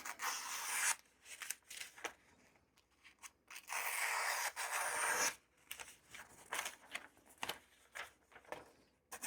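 Freshly stropped knife edge slicing through a sheet of paper in a cutting test: a short hissing slice at the start and a longer one about four seconds in, with small paper rustles and ticks between.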